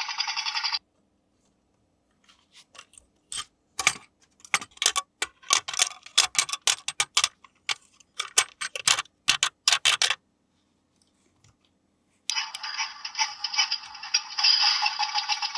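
Hard plastic toy parts being handled, giving a rapid run of clicks and rattles. A steady high buzzing from a small toy motor stops about a second in and starts again about twelve seconds in.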